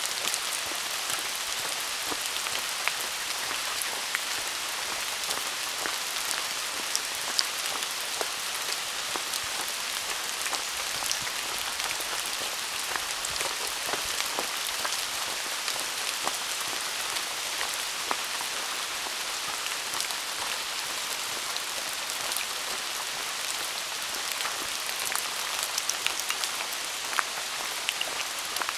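Steady rain falling on rainforest leaves: an even hiss of many small drops, with sharper single drips scattered through it and a few more of them near the end.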